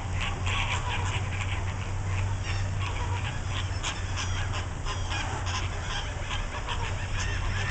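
A flock of American flamingos honking and gabbling in a dense chorus of many short overlapping calls, over a steady low hum.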